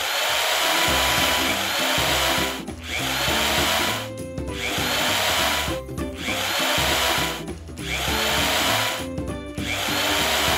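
John Deere toy power drill whirring in about six runs of a second and a half each, with short pauses between, as its bit turns against a toy dump truck's wheel. Light background music underneath.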